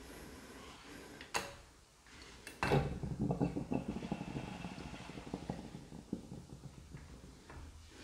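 Gloved hand handling things in a sink basin: a sharp click, another shorter one, then a few seconds of scraping and rattling at the drain that fades out.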